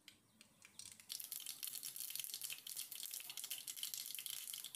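Mustard seeds crackling and sizzling in hot oil in a frying pan as a tempering begins. It is a dense run of tiny fast pops that starts about a second in and keeps going.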